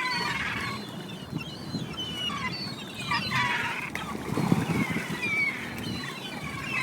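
A flock of seabirds calling over and over in short, high, sliding calls, over the splashing of water as bluefin tuna feed at the surface. A louder splash comes about four and a half seconds in.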